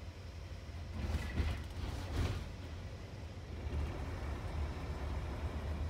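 Road noise inside a moving vehicle: a steady low rumble of engine and tyres, with a couple of louder surges a second or two in.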